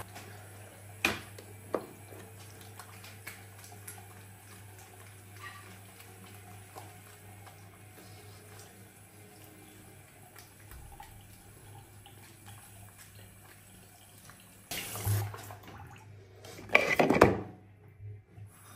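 Quiet household sounds with a low steady hum and a couple of sharp clicks, then short bursts of running water near the end.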